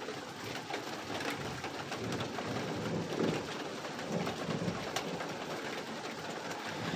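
Steady rain falling, an even hiss, with a few soft low calls in the middle like a dove cooing.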